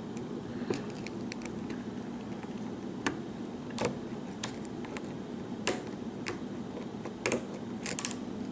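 Small, sharp metallic clicks and ticks at irregular intervals, some in quick clusters, from a lock pick and tension tool working the pins of a challenge lock, over a steady low hum.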